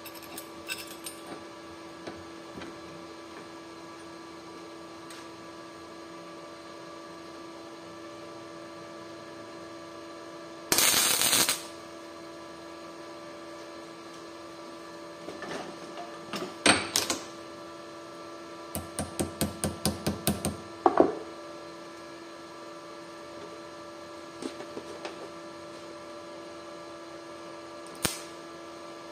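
Workshop sounds: a steady electrical hum, with scattered clicks and knocks as things are handled. A loud burst of rough noise lasts about a second, about 11 seconds in. A quick run of about ten even clicks follows a little past the middle.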